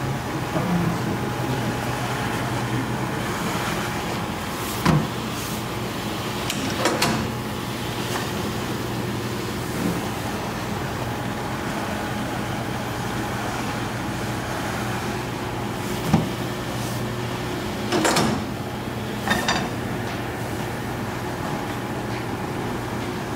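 Automatic noodle-dough sheeting machine running with a steady hum as its rollers and conveyor roll out a sheet of ramen dough. About five short clatters fall at irregular intervals.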